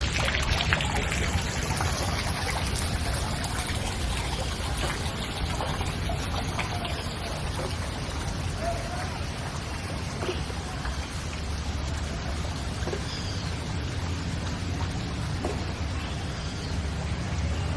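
Steady hiss of water, rain or running water, even and unbroken throughout.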